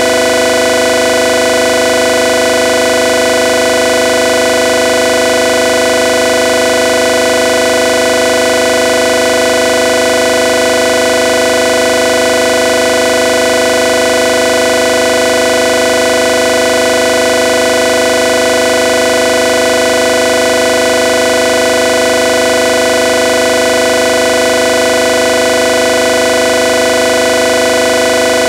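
Loud electronic drone: many steady tones held together, unchanging, with no beat or rhythm.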